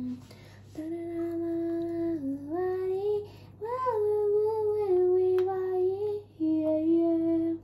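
A woman's voice singing a wordless tune to herself in long held notes that slide from one pitch to the next, with a few short breaks.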